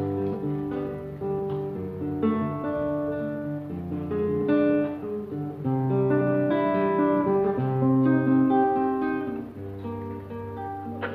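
Acoustic guitar played solo: an instrumental passage of notes and chords ringing one into the next.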